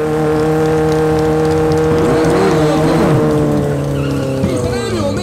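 Suzuki Hayabusa 1300 inline-four motorcycle engine held at steady high revs during a burnout, its spinning rear tyre squealing and wavering against the asphalt. The engine note drops slightly near the end.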